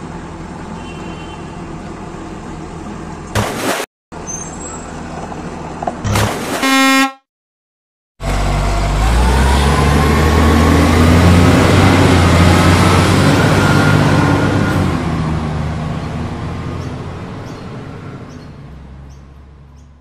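Truck sound effects: a steady engine hum, a short horn toot about six seconds in, then after a second of silence a truck engine that swells up with rising pitch and slowly fades away.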